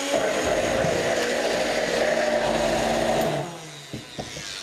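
Vintage electric kitchen mixer running steadily, whisking eggs as rapeseed oil is streamed in to emulsify a mayonnaise; the motor winds down and stops about three and a half seconds in.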